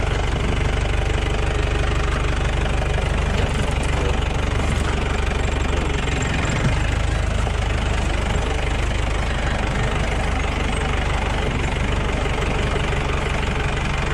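Off-road jeep's diesel engine running steadily at low speed, driving down a rough track.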